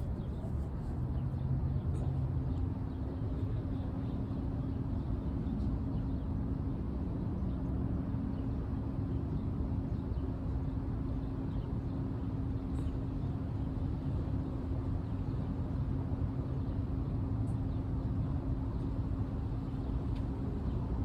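Steady low outdoor rumble, with a steady low hum that comes in about two seconds in and holds.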